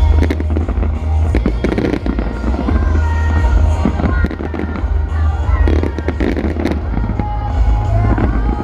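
Fireworks going off: a run of bangs and crackles with a heavy low boom, over music from the show's loudspeakers.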